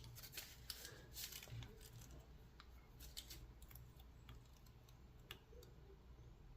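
Faint, irregular small clicks and light taps of hand tools working on a solid brass American Lock 5560 padlock as it is being opened up.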